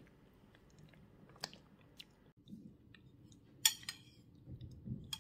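Quiet eating from a bowl: a metal spoon clicks a few times against a ceramic bowl, the sharpest click a little past the middle, with soft chewing of a spoonful of taro and sago in coconut milk.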